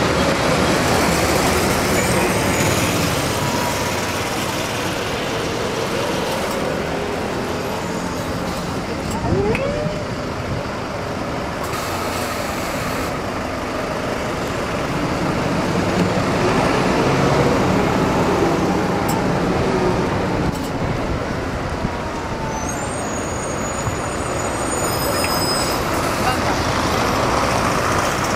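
Busy city street traffic heard from the open top deck of a bus: cars, a truck and a city bus running close by in a steady mix of engine and tyre noise. About nine seconds in, an engine revs up briefly.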